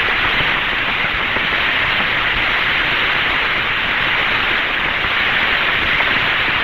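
Steady radio static hiss on the 1962 Mercury Friendship 7 capsule voice channel, with no voice on the line. It is a dense, even hiss limited to the narrow band of the radio link.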